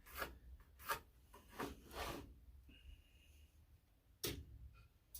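Faint pencil strokes scratching a mark onto a wooden board, several quick strokes in the first two seconds, then a single sharp click a little past four seconds in.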